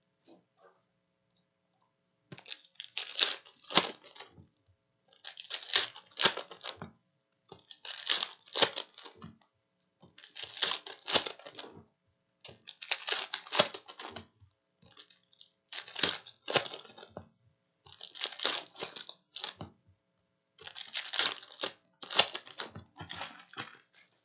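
Foil trading-card packs of 2019-20 Panini Hoops basketball crinkling and crackling as they are handled one after another. About nine separate bursts of crinkling come roughly every two and a half seconds after a quiet first two seconds.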